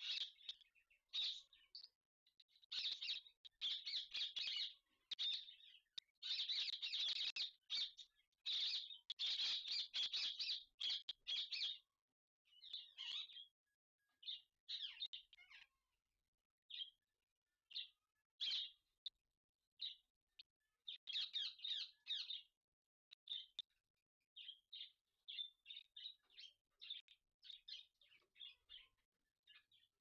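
Indian ringneck parakeets giving rapid high-pitched chirping chatter during mating. The chirps come in dense runs for the first twelve seconds or so, then in shorter, scattered bursts with gaps between.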